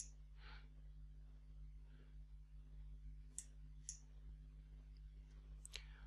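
Near silence: faint room hum with a few soft computer mouse clicks, a pair about halfway through and another pair near the end.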